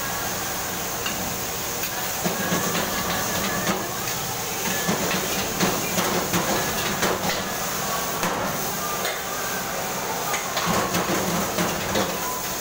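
Vegetables being stir-fried in a wok over a gas wok burner: a steady hiss and sizzle, with a metal wok ladle clanking and scraping against the pan many times.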